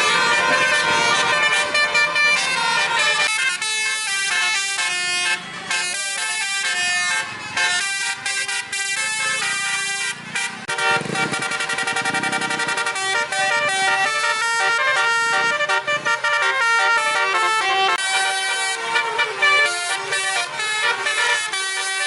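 Bus 'telolet' multi-tone air horns playing quick melodic runs, the pitch jumping from note to note in rapid steps.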